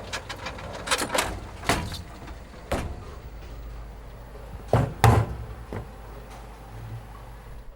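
A few sharp knocks or thumps, the loudest pair about five seconds in, over a steady background hiss.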